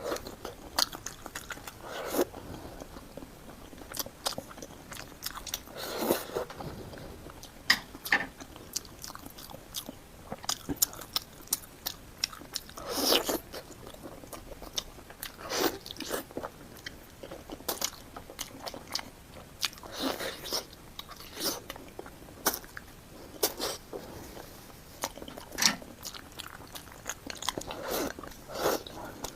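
Person eating into a close microphone: irregular bites and chewing, some of them crunchy, with short pauses between mouthfuls.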